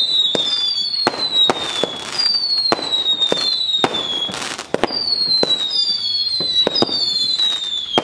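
Whistling fireworks fired in quick succession: about seven shrill whistles, each falling in pitch over about a second and overlapping the next, with sharp pops and cracks between them.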